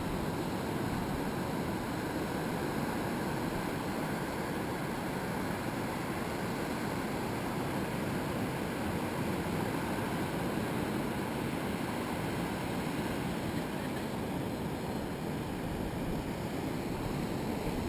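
Surf washing onto a sandy beach, heard as an even, steady rushing noise with no single wave crash standing out.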